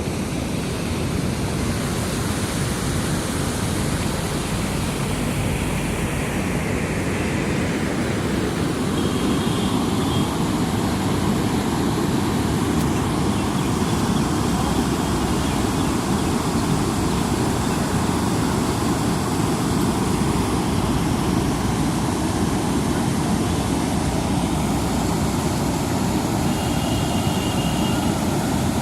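Steady, loud rush of a swollen river running fast after continuous rain.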